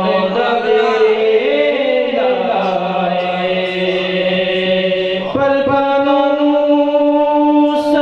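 A man singing a devotional chant solo into a microphone, drawing out long held notes; a little over five seconds in the melody shifts and settles on a new sustained note.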